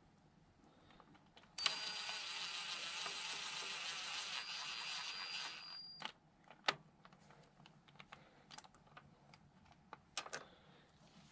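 Cordless impact wrench running for about four seconds, a rapid hammering rattle with a high motor whine, spinning out a retainer bolt; it cuts off suddenly, followed by a few sharp metallic clinks of tools and parts.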